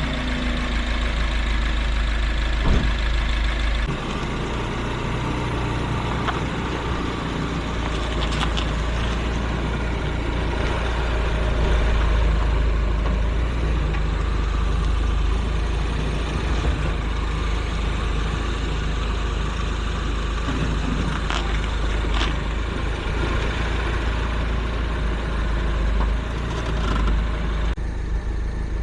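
Mini Cooper S R56's 1.6-litre turbocharged four-cylinder engine running steadily, its revs falling just at the start, with a heavy low rumble and a few short clicks now and then.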